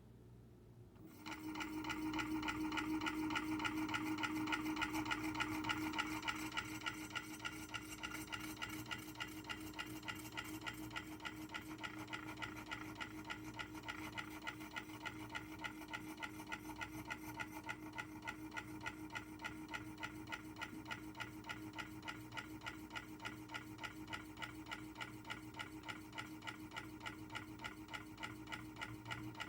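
Scooter running in its lowest speed setting with a steady hum and a fast, regular clank, clank, clank from the drive, starting about a second in. It is a new noise, which the rider suspects came from bumping into something while riding.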